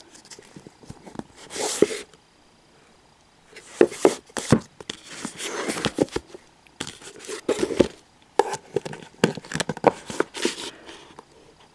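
Paperback manga volumes being handled on a shelf: fingers brushing, tipping and tapping the spines, giving clusters of clicks, taps and rustles, with a short pause about two seconds in.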